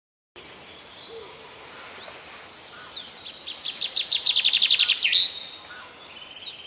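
Songbirds singing: high whistled phrases, then a rapid trill of about nine notes a second, the loudest part, ending in a falling note around the middle.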